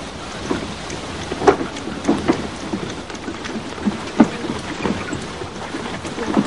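Irregular knocks and slaps over a steady noisy background, from dough and wooden boards being handled for bread making at a clay oven.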